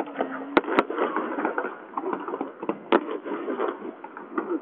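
Fireworks display: sharp bangs of shells bursting, two about half a second in and one near three seconds, over a dense crackle.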